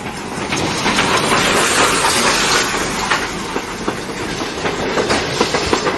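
Steam-hauled passenger train rolling past close by, a steady rushing noise with its wheels clicking over the rail joints.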